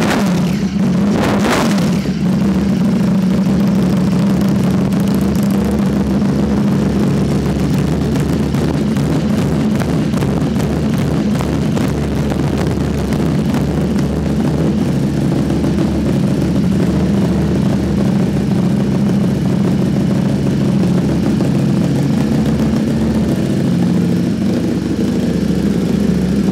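Ducati Streetfighter V4 S's 1103 cc V4 engine running at a steady idle through a freshly fitted aftermarket Arrow exhaust. A brief louder burst comes about a second and a half in.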